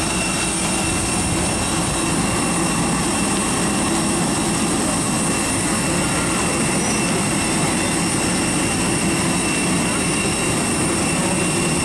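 Aircraft turbine engine running steadily: a constant high whine with several tones over an even rushing roar.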